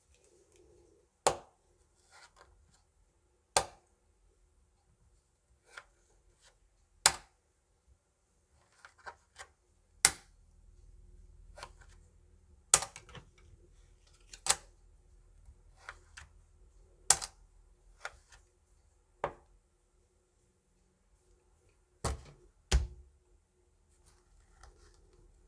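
Hwatu (Korean flower cards) slapped down hard one onto another, about ten sharp clacks at uneven intervals, with softer clicks and rustling of the cards between; two slaps come in quick succession near the end.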